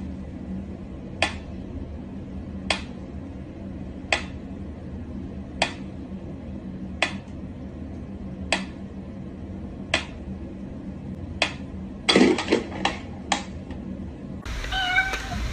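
Mechanical pendulum metronome ticking slowly, one sharp tick about every second and a half. Near the end comes a quick run of louder knocks and clatter.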